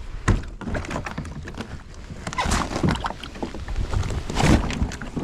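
Irregular knocks, bumps and water sloshing from a small plastic kayak as someone shifts about and paddles in it, with louder thuds about a third of a second in, around the middle and near the end.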